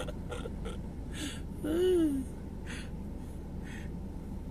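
A man breathing in a pause between phrases: a few short breaths and a brief, low vocal "hm" about two seconds in, over a steady low background hum.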